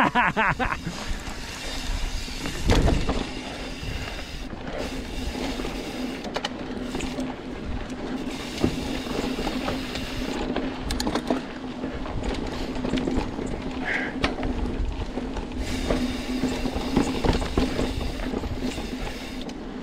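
Mountain bike moving along a dirt trail: steady rolling and mechanical hum with scattered clicks and knocks, one louder knock about three seconds in.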